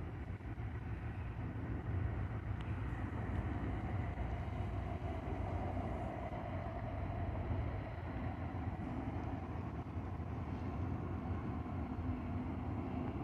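Distant rumble of a Union Pacific freight train's diesel locomotives approaching, a steady noise with no horn.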